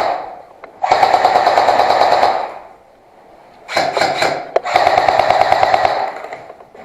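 Airsoft rifle firing two long full-auto bursts of about two seconds each, the rapid shots running over a steady whine.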